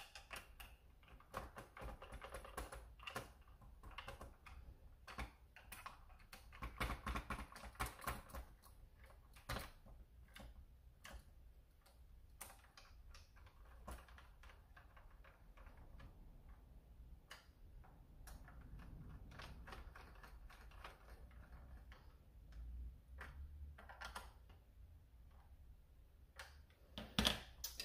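Faint, irregular clicks and taps of hard plastic parts knocking together as a foregrip is handled and fitted onto a foam-dart blaster's rail, with a denser run of clicking about a third of the way in.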